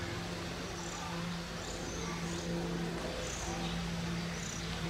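ALCO WDM-2 diesel-electric locomotive's engine giving a steady low drone as it approaches from a distance. Short high chirps repeat about once a second over it.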